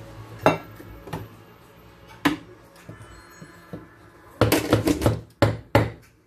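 Metal clicks and clunks as the portafilter of a Gaggia Classic espresso machine is turned out of the group head and lifted free, then a quick run of loud knocks and clacks in the last two seconds as the portafilter is handled.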